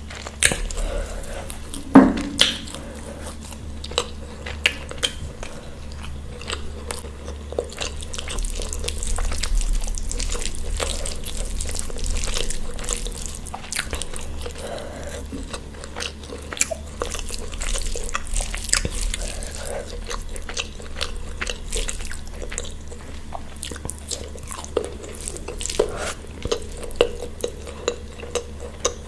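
Close-miked eating: chewing and biting, with many short sharp clicks and a louder crack about two seconds in.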